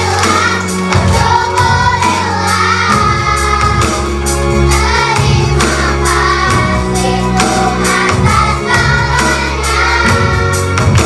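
A group of children singing together over backing music with a steady beat and bass.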